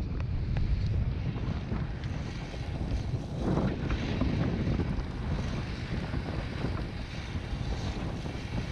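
Strong wind buffeting the microphone in a steady rumbling rush, swelling with gusts about three seconds in and again near the end.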